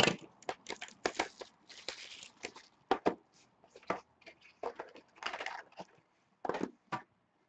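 Plastic shrink wrap crinkling and tearing and a cardboard trading-card box being pulled open by hand: a run of irregular sharp crackles and clicks with a few longer rustles.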